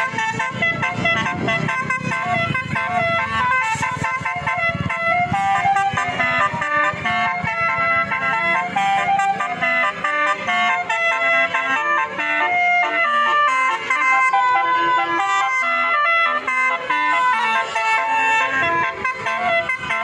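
Indonesian bus 'telolet' basuri horn playing a melody of several tones at once, stepping from note to note without a break. A low engine rumble runs under the first few seconds.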